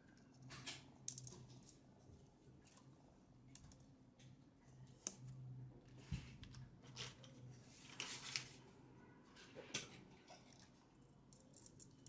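Faint, scattered clicks and short scrapes of small hand tools and drone parts being handled, over a low steady hum. The sharpest click comes about five seconds in.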